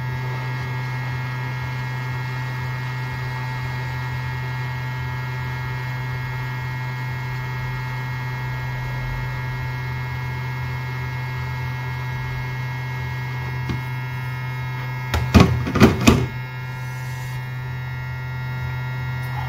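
Hot air rework station blowing steadily, a constant hum with a few steady whining tones, heating components on the laptop motherboard. A few sharp clicks come about fifteen seconds in.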